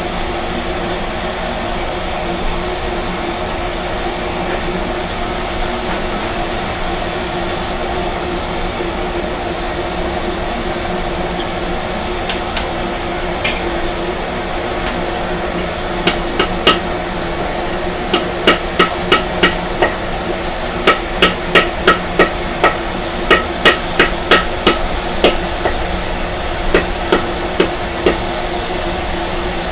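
Light hammer taps on metal, reshaping a chisel's bent metal ferrule. The taps come in quick runs of about three a second through the second half, over a steady background hum.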